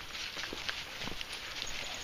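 Footsteps along an outdoor path: several short, irregular steps and knocks a second over a steady background hiss.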